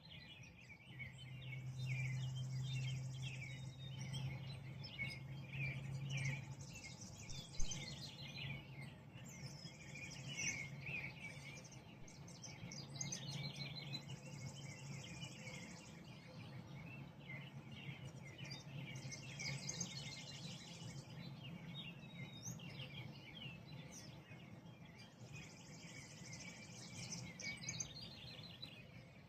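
Many birds chirping and singing together before sunrise, a dawn chorus. A high, buzzy trill about two seconds long comes back about every six seconds. A low steady hum runs underneath and is strongest in the first few seconds.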